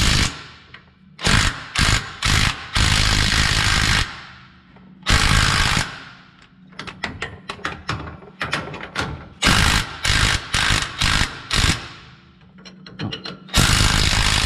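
Impact wrench hammering in many short bursts and a few longer runs of about a second each, tightening the shock mount bolt.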